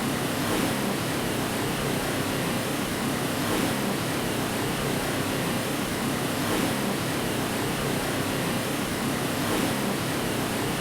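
Steady white noise, an even rushing hiss with a faint swell about every three seconds, of the kind played to lull a baby to sleep.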